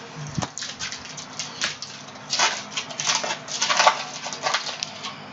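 Foil trading-card pack being torn open and its wrapper crinkled, with cards sliding against each other as they are handled: a run of irregular crackling rustles, busiest around the middle.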